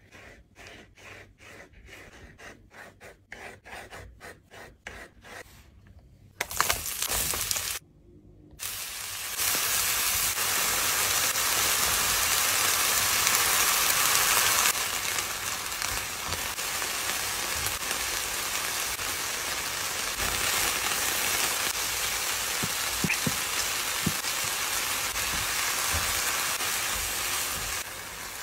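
A knife cutting through button mushrooms on a wooden board, about three cuts a second. About six seconds in, food starts sizzling in a frying pan, a steady hiss that eases a little about fifteen seconds in, when corn kernels go in with the mushrooms.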